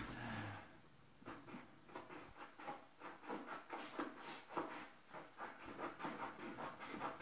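Sheet vinyl flooring being cut and worked in along the base of a wall: a faint, irregular run of short scratchy rubbing strokes.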